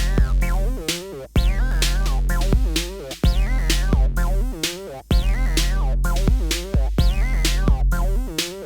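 Electronic music: a drum-machine beat with a deep held bass and wavering, pitch-bending synthesizer lines repeating in a steady loop.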